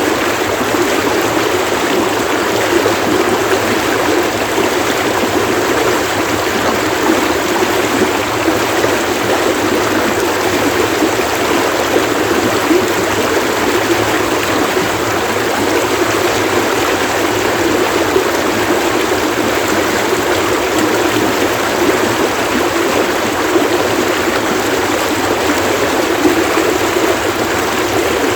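Running water of a stream splashing in a steady, unbroken rush.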